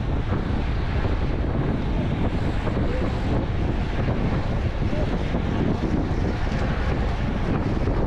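Steady wind noise buffeting the microphone of a camera carried on a bicycle riding at speed.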